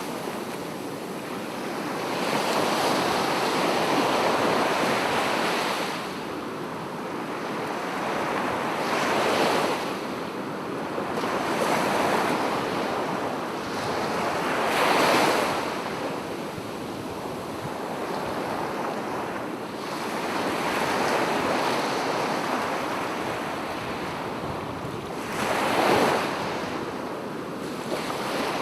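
Sea surf breaking and washing onto the shore in a steady hiss that swells and eases every few seconds. A few stronger breakers stand out, the sharpest about halfway through and near the end.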